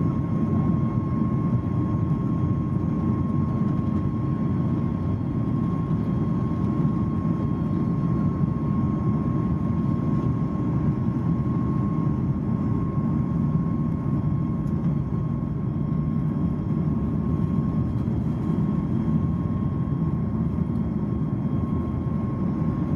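Boeing 737 MAX cabin noise while taxiing, heard from inside over the wing: the CFM LEAP-1B engines at low taxi thrust give a steady low rumble with a steady whine above it, with no build-up in power yet.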